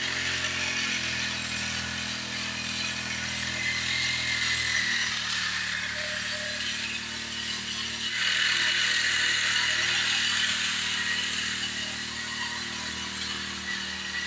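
Small four-stroke engine of a power sprayer running steadily, under the hiss of high-pressure mist from the spray lance. The hiss grows louder about eight seconds in.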